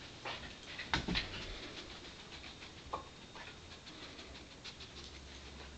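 Pembroke Welsh Corgi sniffing out hidden treats, panting and moving about, with a few sharp knocks about a second in and one more around three seconds.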